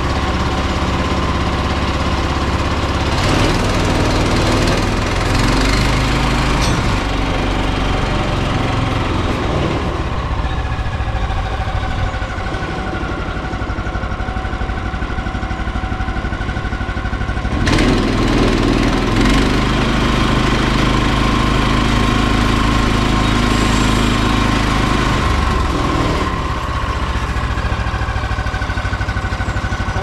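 An engine idling steadily, its low note shifting a few times.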